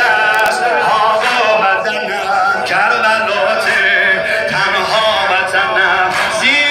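A large crowd of men chanting together, many voices overlapping without a break.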